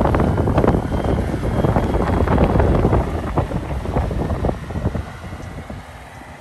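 Storm wind gusting on the microphone, a heavy rumble full of crackles that eases off about four and a half seconds in.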